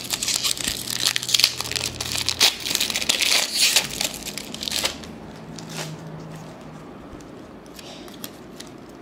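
A trading-card pack's wrapper being crinkled and crumpled by hand: dense crackling for about the first five seconds, then quieter rustling as the cards are handled.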